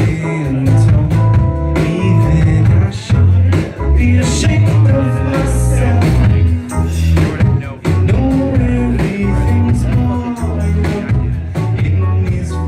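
Live band playing a rock song: electric guitar, bass and drums with a lead singer.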